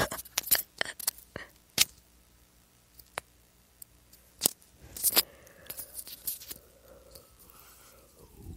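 Irregular sharp clicks and taps, bunched near the start and again around the middle, with a faint murmur in between.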